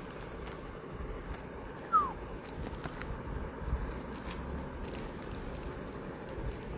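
Faint rustling and crinkling of clear plastic sleeves as small artworks are handled, with scattered light clicks and one short falling squeak about two seconds in.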